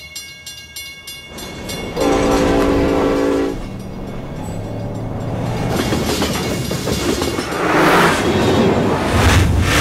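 A multi-tone air horn sounds one held chord for about a second and a half, then a rumble builds steadily and is loudest near the end.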